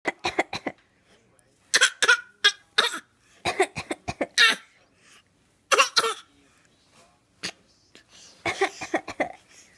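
An adult coughing and a young child answering with pretend coughs, taking turns in short groups of one to three coughs with pauses between.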